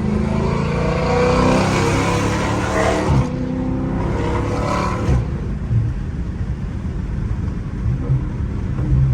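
Catless Dodge Scat Pack's 6.4-litre HEMI V8 accelerating hard, its pitch rising for about three seconds before it cuts off suddenly, then a second shorter surge. After that it settles into a lower, steadier rumble with a few short blips.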